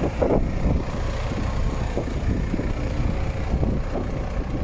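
MAN TGX 26.560 truck's straight-six diesel engine idling steadily, with wind buffeting the microphone.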